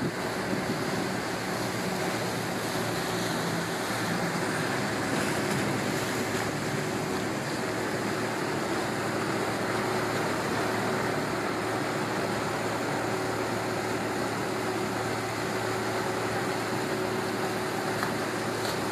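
Motorboat water taxi under way: its engine runs steadily under the rush of water against the hull.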